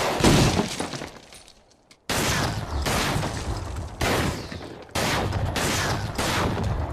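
Movie gunfire: a heavy volley of revolver and shotgun fire from several shooters. A loud burst comes at the start and dies away, then the firing is continuous from about two seconds in, with brief breaks near four and five seconds in.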